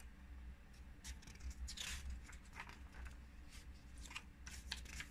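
Pages of a picture book being turned and handled: a few short, faint paper rustles and scrapes, the loudest about two seconds in, over a low steady hum.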